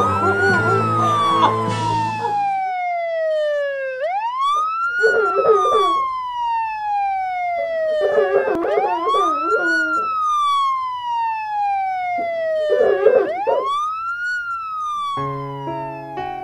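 Emergency-vehicle siren wailing: each wail rises quickly, then falls slowly over about four seconds, repeating four times, with short wavering cries between the wails. Music plays for about the first two seconds and comes back near the end.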